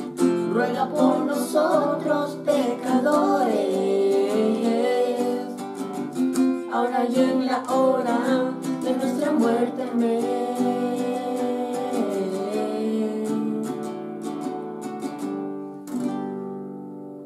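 Acoustic guitar strummed while a man and two boys sing. The voices stop about ten seconds in, the guitar strums on, and a last strum about sixteen seconds in rings out and fades.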